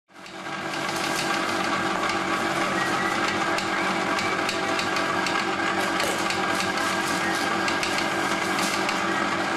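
A steady mechanical hum with a dense run of clicks and knocks, fading in quickly at the start and then holding level.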